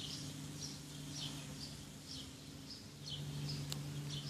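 A bird chirping over and over, short high notes about twice a second, over a low steady hum, with one faint click near the end.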